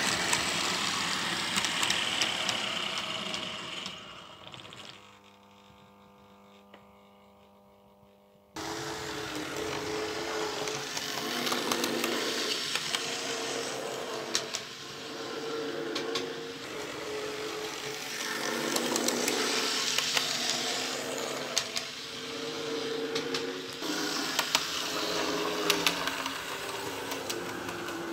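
Electric motor of an HO-scale model railcar whirring as it runs along the track, with light ticks from the wheels. About five seconds in it fades to a faint hum, and a few seconds later it returns abruptly.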